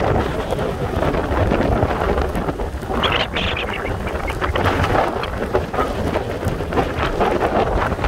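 Strong tropical-storm wind gusting over the microphone and buffeting it, over the wash of heavy surf breaking on the beach.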